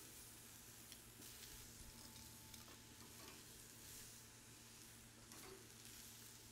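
Faint, steady sizzle of thinly pounded chicken pieces cooking on a hot grill, with a few light ticks.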